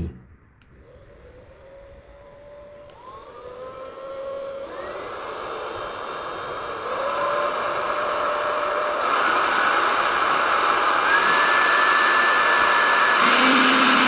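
OMXE Opal 21 V cordless air blower running on its variable-speed trigger: the motor and fan start faintly and speed up in several steps, the whine rising in pitch and getting louder, and it holds near full speed for the last few seconds.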